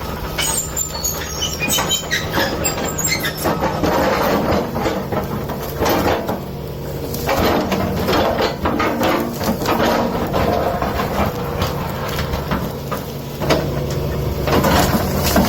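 Digger's diesel engine running steadily while its bucket works, with irregular clattering, scraping and creaking from the bucket against earth, rock and vegetation.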